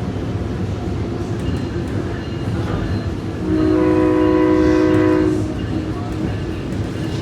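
SMART diesel multiple-unit train running with a steady low rumble, its horn sounding one blast of about two seconds about three and a half seconds in.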